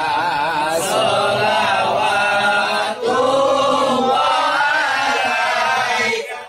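A group of men chanting a sholawat together in praise of the Prophet, in unison with wavering, drawn-out notes. The singing cuts off suddenly near the end.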